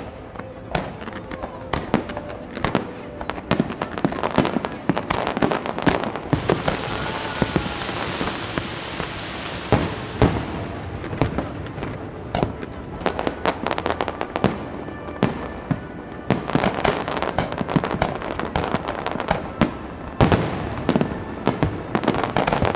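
Fireworks display: a rapid, irregular string of sharp bangs and crackles from rockets and aerial shells, with a rushing hiss that swells about six seconds in and fades by about ten seconds.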